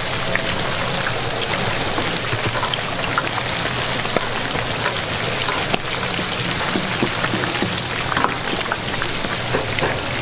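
Deep-fryer oil sizzling and crackling steadily around a batch of battered small crabs and shrimp, with occasional light clicks from the metal skimmer and tongs.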